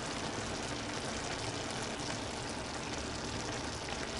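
Rice simmering in chicken stock in a frying pan: a steady, soft bubbling of the cooking liquid.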